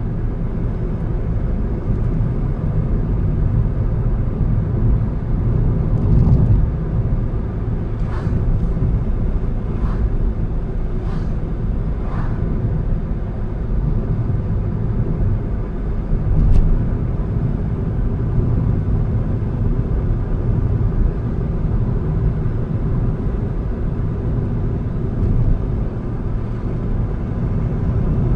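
A car driving along a road: steady low engine and tyre rumble, with a few faint brief ticks or knocks scattered through it.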